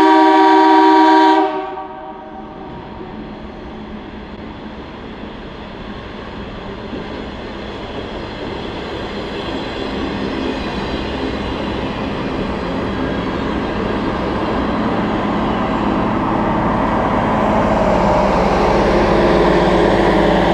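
A train's multi-chime air horn sounding a loud chord that cuts off about a second and a half in, then the train approaching, its rumble growing steadily louder with engine tones coming through near the end.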